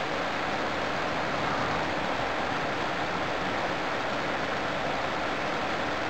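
Steady rushing hiss of a microwave oven's inverter and cooling fan running while it drives an induction coil that is heating water in a tin can.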